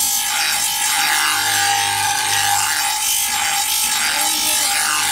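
Electric bench grinder's abrasive wheel grinding rust off the steel blade of a boti (curved Bengali cutting blade): a steady whine under a harsh grinding hiss that swells and eases every second or so as the blade is pressed and drawn across the wheel.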